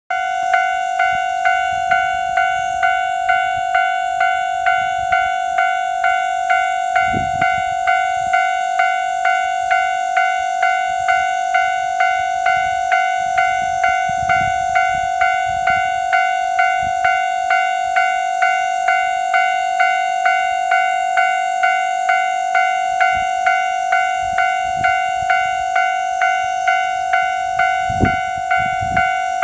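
Railway level-crossing warning bell ringing steadily, about three strikes every two seconds, signalling that a train is approaching and the crossing is closed.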